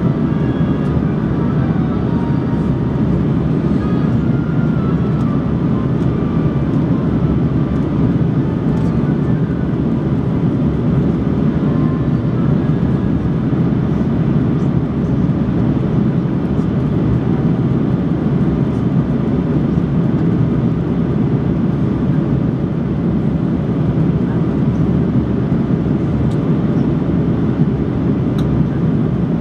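Airbus A330 cabin noise in flight, heard from inside at a window seat: the jet engines and rushing air make a steady, even rumble, heaviest in the low end.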